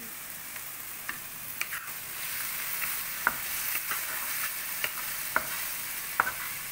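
Diced onion, carrot and potato frying in a little oil in a kadhai, a steady soft sizzle, while a wooden spatula stirs them, knocking and scraping against the pan about once a second.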